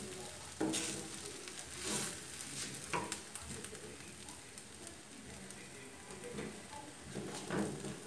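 A pancake sizzling in oil in a frying pan, with a wooden spatula pushing and scraping it against the pan in a few louder strokes.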